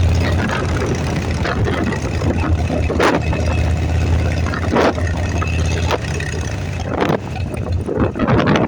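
Motorcycle engine running with a steady low rumble, and a few short sharp noises over it.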